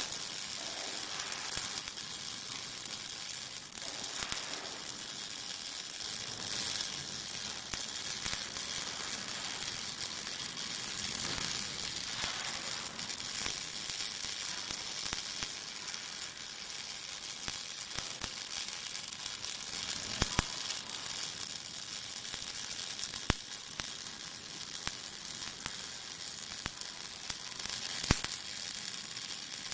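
Welding arc of an automatic rotary welding machine burning steadily: a continuous crackling sizzle, with a few sharp pops in the last third.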